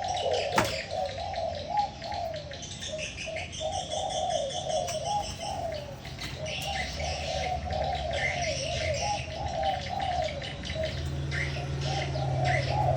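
Spotted doves cooing on and on, with a rolling, wavering coo, and small birds chirping faintly higher up. A single sharp click about half a second in.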